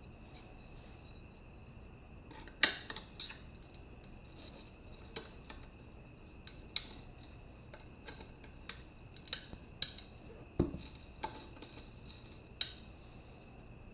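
Metal tire-changing tools clinking and tapping against a motorcycle wheel rim while working the tire bead loose: about a dozen sharp, irregular clinks, starting a few seconds in.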